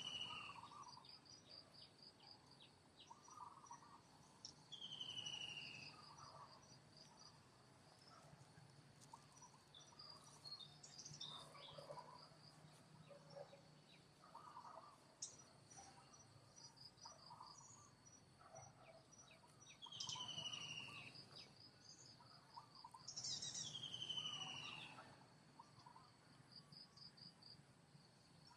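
Faint forest ambience. Insects keep up a steady high buzz with rows of rapid chirps. About four times a call sweeps down in pitch, the loudest near the end, and soft short chirps are scattered throughout.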